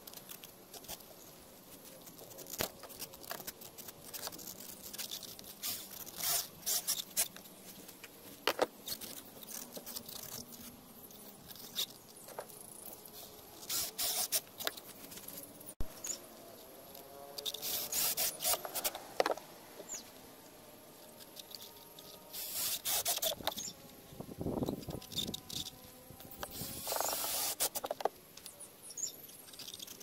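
Hands working a rubber bicycle tyre onto a plastic wheel: scattered rubbing, scraping and clicking of rubber against plastic, in uneven bursts.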